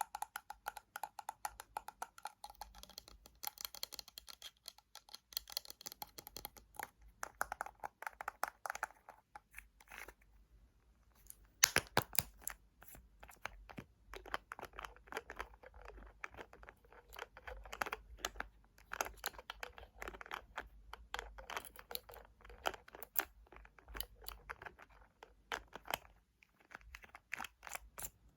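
Fingernails tapping and scratching on hard plastic and glass objects: many quick light clicks in runs, with a short pause about ten seconds in and one sharper, louder tap shortly after.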